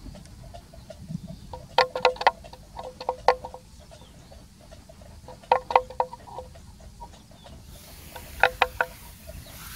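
A bell clunking in short clusters of three to five hollow, ringing knocks every few seconds.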